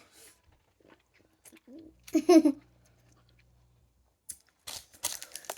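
Biting and chewing on a Nik-L-Nip wax bottle candy, with crisp crunching and crackling near the end. A brief vocal sound comes about two seconds in.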